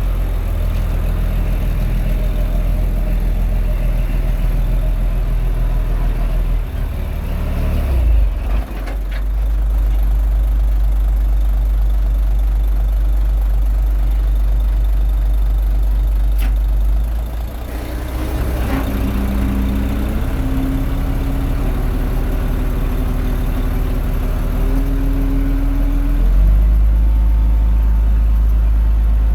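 Diesel engine of a Komatsu D21A mini bulldozer running under work, loud and continuous, its note shifting a few times as the load and engine speed change.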